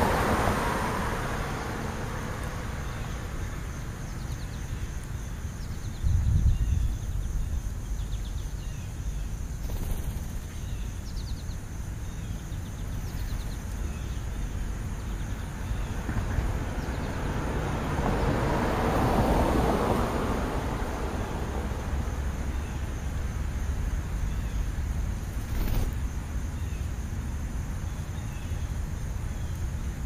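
Outdoor ambience with a steady low rumble, over which a car passing on a nearby street swells and fades away past the middle. Faint bird chirps come through now and then.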